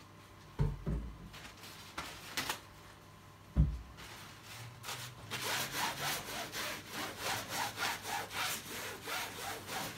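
Paper towel scrubbed back and forth over a rubber table mat, disinfecting it, at about three strokes a second from about five seconds in. Before that, a few knocks on the table, the loudest about three and a half seconds in.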